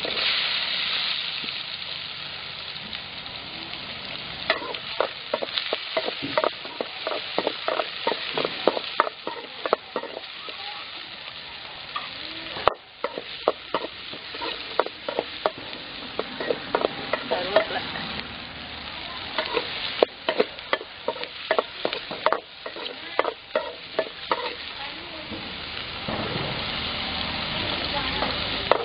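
Chopped onions sizzling in hot oil in a metal kadai, loudest right after they go in. A metal ladle then stirs them with many sharp scrapes and clinks against the pan while the frying goes on underneath. Near the end the sizzle grows louder again.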